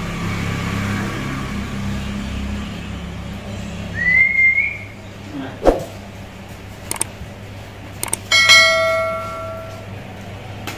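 Low steady hum, then a short rising whistle-like tone, a few sharp clicks, and a bell-like ding that rings for about a second and a half and fades: the click-and-bell sound effect of a subscribe-button overlay.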